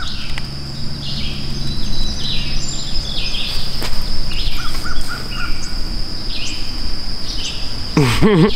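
Creekside birdsong: short chirping calls repeating through, with a run of four quick notes about three and a half seconds in, over a steady high insect buzz. A brief wavering sound comes just before the end.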